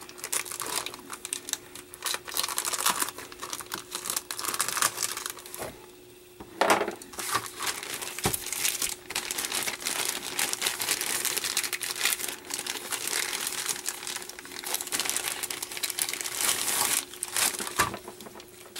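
Thin clear plastic bag crinkling and rustling in dense, irregular crackles as it is slit open and pulled off plastic model-kit sprues, with a short lull about six seconds in. A faint steady hum runs underneath.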